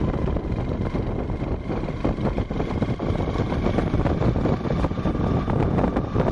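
Riding noise from a motorcycle on the move: the engine running steadily under a dense rumble of wind over the microphone.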